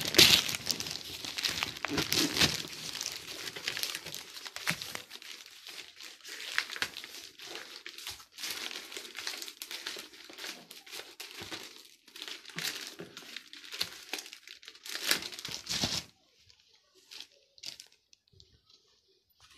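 Plastic courier mailer bag being torn open and crumpled by hand: an irregular run of crinkling with louder ripping bursts, stopping near the end.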